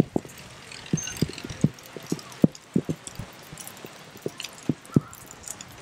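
Rain dripping close by: irregular dull taps of falling drops, about two or three a second, over a steady light hiss of rain.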